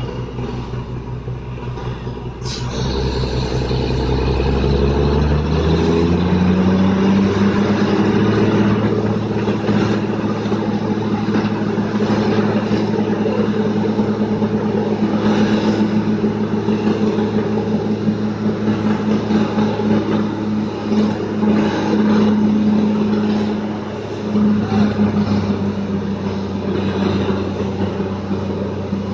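Borewell drilling rig's engine speeding up a couple of seconds in, then running steadily at high speed, with a broad rushing noise over it. It dips briefly near the end.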